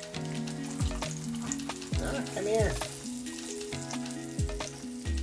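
Vegetable oil sizzling and crackling steadily around breaded fish pieces frying in a skillet, with the utensil moving the pieces in the pan.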